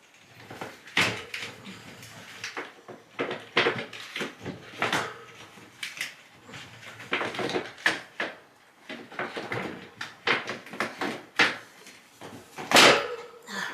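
An air filter and its return-vent grille being handled: a string of knocks, clicks, scrapes and rustles as the filter is worked into the vent, with the loudest knock near the end.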